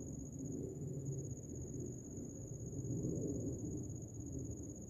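Low, wavering rumble of a distant commercial jet airliner passing high overhead, with a steady high-pitched insect trill above it.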